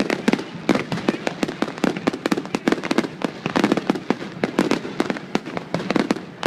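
Fireworks going off nonstop, a dense run of sharp bangs and crackles several times a second.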